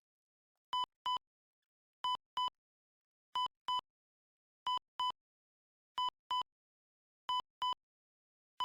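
Electronic beeps in pairs, a pair about every 1.3 seconds, in a heartbeat-like rhythm, like a hospital heart-monitor sound effect, with dead silence between the pairs.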